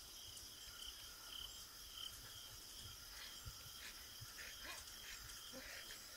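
Faint, steady high-pitched insect chirping, a pulsing note that repeats about every half second, over a low rumble.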